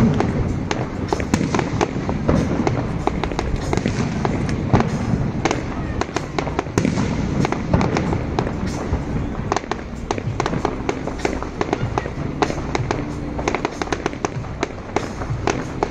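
Fireworks display going off in a rapid, continuous stream of sharp cracks and bangs over a low rumble.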